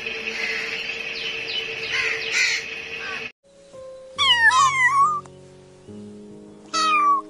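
House crows cawing over a steady hiss of background noise, then after a sudden cut a kitten meowing several times over soft background music.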